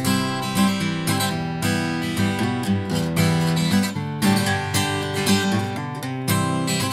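Acoustic guitar strummed in a steady rhythm, about two strums a second, recorded dry without reverb. It is strung with light 10-gauge Ernie Ball strings.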